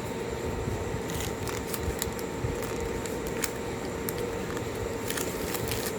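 Small clicks and paper rustling as wrapped gift items are handled and opened, over a steady low hum.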